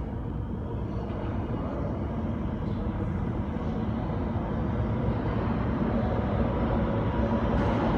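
New York City subway train approaching through the tunnel, its rumble growing steadily louder as it nears the station.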